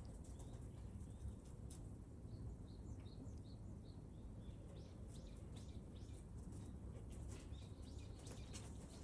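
Small birds chirping faintly, with a quick run of short chirps a couple of seconds in, over a steady low outdoor rumble and scattered light clicks.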